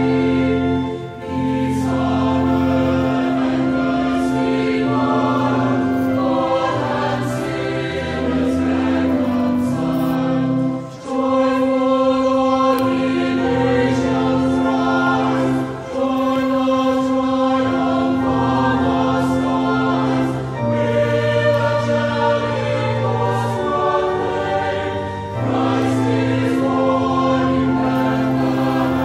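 Choral music laid over the video: a choir singing long held chords over sustained low notes, with short breaks between phrases every few seconds.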